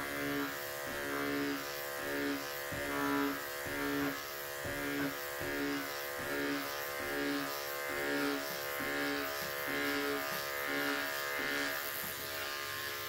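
Corded electric clippers running as they shave short-pile faux fur. The buzz is steady and swells and fades in a regular rhythm a little under twice a second as the blade is pushed through the pile in short passes.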